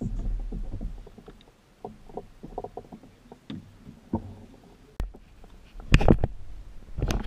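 Knocks and bumps from a fishing kayak and its gear being handled, over a low rumble. A sharp click comes about five seconds in, and a cluster of louder bumps near the end.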